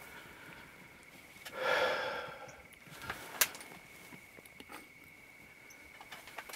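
A person's heavy, breathy exhale lasting about a second, about one and a half seconds in, followed by a few sharp clicks.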